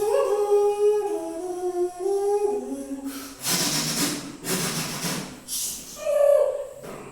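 A man's voice imitating a snake charmer's magudi (pungi) tune: a nasal, hummed melody stepping between a few held notes for about three seconds, then three loud breathy hissing bursts and a short final note.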